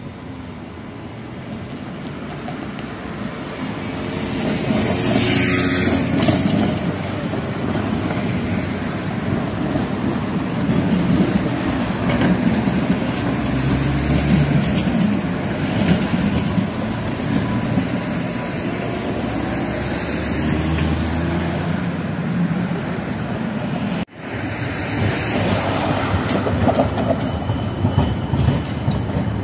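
Trams running past on street tracks: a Tatra tram rolls by with a steady running noise of wheels on rails and passing road traffic. About two-thirds through, the sound cuts off abruptly and a CAF Urbos low-floor tram takes over, rolling past.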